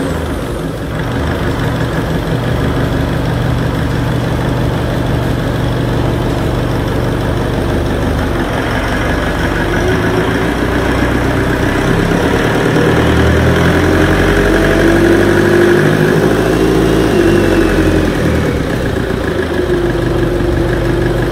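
FPT marine diesel engine idling just after starting. It runs steadily, and its note shifts up and down a little about halfway through.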